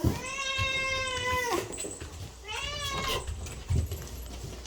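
A domestic cat meowing twice: one long, drawn-out meow that drops in pitch at its end, then a shorter meow that rises and falls.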